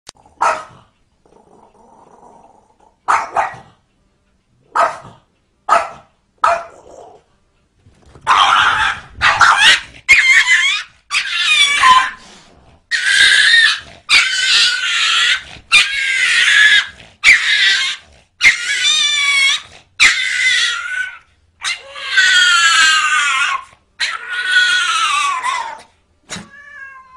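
A small dog yapping several times in short sharp calls. About eight seconds in, a dog and a cat start scuffling, with a long run of loud wavering cries one after another.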